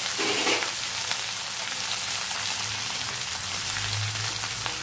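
Coconut oil sizzling steadily around masala-coated fish pieces shallow-frying in a cast-iron pan.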